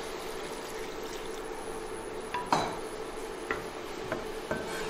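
Braised pork simmering in water in a stainless steel wok, a soft steady bubbling hiss with a faint steady hum under it. A few clinks and knocks of kitchen utensils break in, the sharpest about halfway through, with lighter ones near the end.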